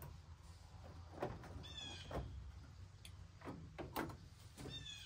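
Faint clicks and light knocks of a gauge cluster being handled and fitted into an old truck's metal dash opening, with two short high chirps about two seconds in and near the end.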